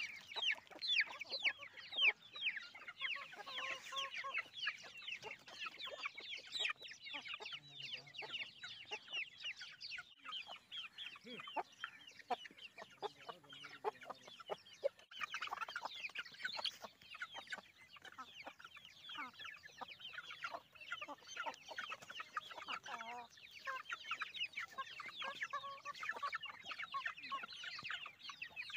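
A flock of Aseel chickens and chicks calling around a bowl of grain: a steady stream of rapid, high chick peeps, many a second, with clucking mixed in.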